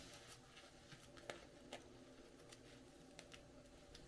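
Near silence: room tone with a few faint, light clicks as the package is handled.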